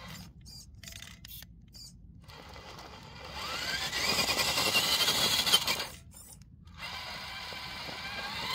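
Electric RC rock crawler's drivetrain (Fusion Pro motor and VFD two-speed transmission) whining under load as it crawls over rocks. The whine rises in pitch and grows louder from about three seconds in, dips briefly, then rises again near the end.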